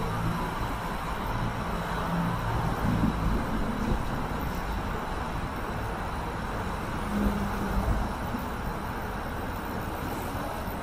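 Steady road traffic noise, a low rumble with engines swelling briefly about two to four seconds in and again about seven seconds in.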